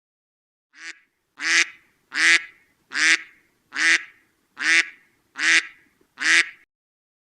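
Domestic waterfowl calling: a faint first call, then seven loud, harsh calls, evenly spaced a little under a second apart.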